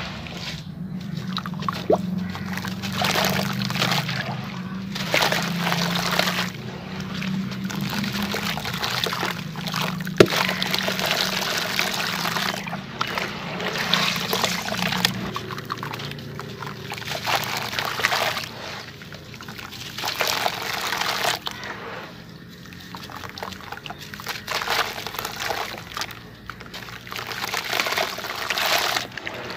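Hands squeezing and crumbling wet sand-cement mix in a plastic tub of water: repeated wet sloshing and squelching swells, one every second or two, with a single sharp click about ten seconds in.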